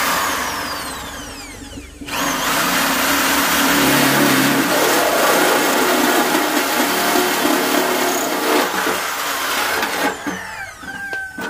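Electric drill with a 20 mm hole saw cutting through the sheet-metal panel board enclosure. The drill winds down briefly about two seconds in, then cuts steadily again and eases off near the end.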